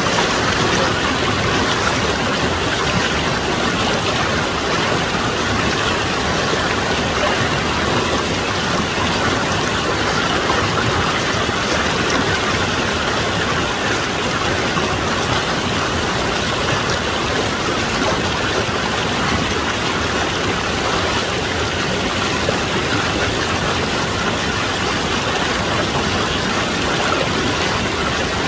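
Mountain valley stream rushing steadily, an even unbroken wash of water noise.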